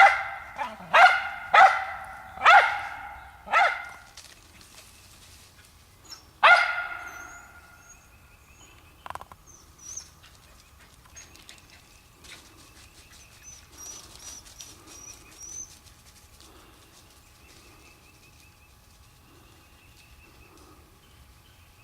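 Squirrel dog barking at a squirrel hidden in a tree's knot hole: five sharp barks about one a second, then a single bark about six and a half seconds in. After that only faint rustling and a few thin high chirps.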